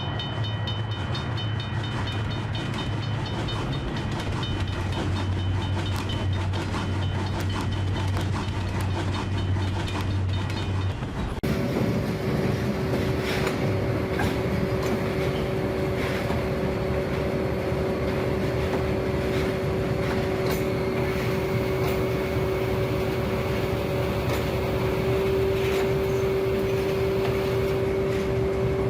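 Trains running along the tracks: a steady low engine hum with wheels clacking over the rails. About eleven seconds in the sound changes abruptly to a steady two-note whine, still with occasional wheel clacks.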